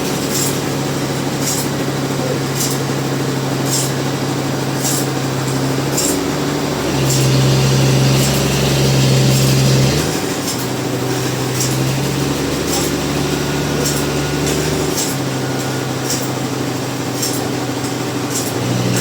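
Sawmill machinery running with a steady engine hum, louder and rougher for about three seconds in the middle. A sharp high tick repeats about once a second.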